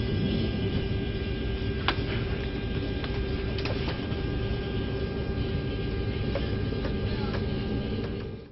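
Steady airliner cabin noise: a low rumble and hiss with a constant hum, broken by a few small clicks about two seconds in and again around three and a half seconds. It cuts off abruptly near the end.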